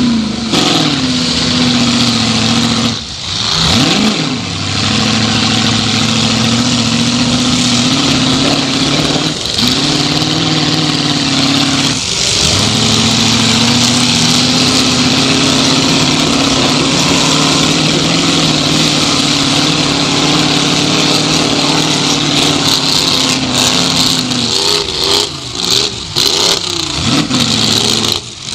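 Ford 351M V8 of a 1979 Ford Thunderbird demolition derby car running hard, heard from inside the stripped cockpit. The engine note holds fairly steady but dips and climbs again several times, around three, ten and twelve seconds in, and the revs jump up and down repeatedly near the end.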